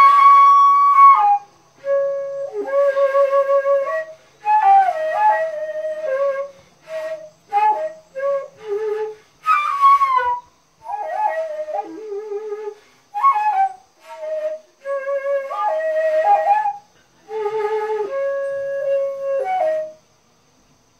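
Daegeum, the Korean transverse bamboo flute, played solo: a slow melody of long held notes with pitch bends and downward slides, in phrases broken by short breaths. The playing ends about twenty seconds in.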